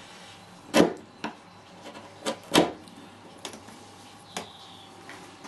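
Wood chisel pushed by hand down through the corners of a small wooden block, giving about six sharp knocks as the blade cuts through and meets the wooden workbench. The loudest comes about a second in and another near two and a half seconds.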